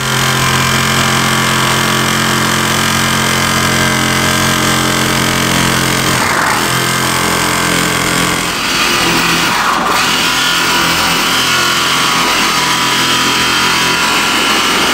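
A motor running steadily, its tone shifting a little about six seconds in and again around nine seconds.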